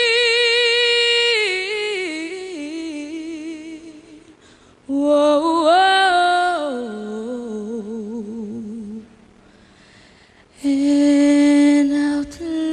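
A fourteen-year-old girl's solo singing voice, unaccompanied, sung close into a handheld microphone. It comes in three phrases of long held notes with vibrato and descending runs, with a short pause after about four seconds and another after about nine.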